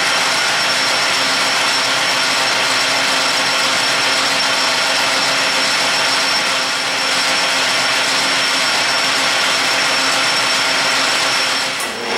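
Metal lathe running and facing the end of a 1018 steel round bar: a steady machine whine with a few held tones over cutting noise. The sound dips briefly near the end.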